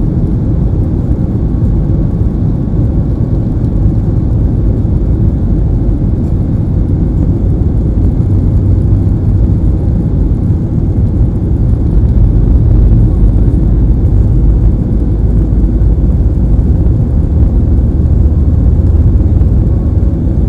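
Boeing 737 MAX's CFM LEAP-1B jet engines, a loud steady deep rumble that grows louder about twelve seconds in.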